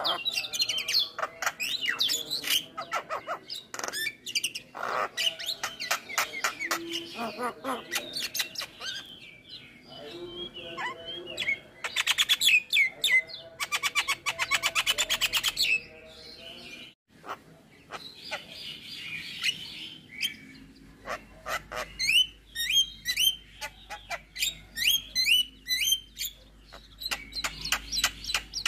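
Javan myna singing a long, varied song full of mimicked calls: quick chirps and whistles, a fast rattling trill in the middle, then repeated short whistled notes after a brief break.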